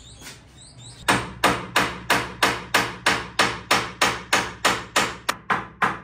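Hammer driving nails into a wooden cage frame: steady, evenly spaced blows, about three a second, starting about a second in.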